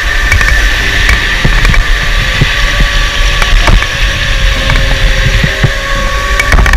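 Electric indoor go-kart driving through corners: a steady high motor whine over a heavy low rumble, with frequent short knocks and rattles from the kart's chassis.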